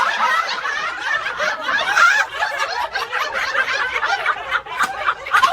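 Several people laughing and snickering at once, overlapping high-pitched giggles.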